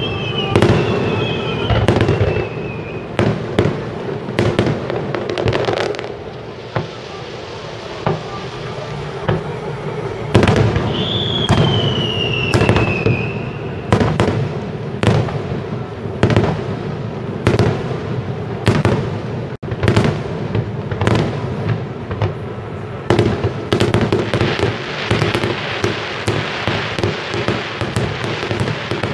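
Aerial fireworks shells bursting one after another in a string of sharp bangs, building near the end into a dense run of rapid crackling. A falling whistle sounds at the start and again about eleven seconds in.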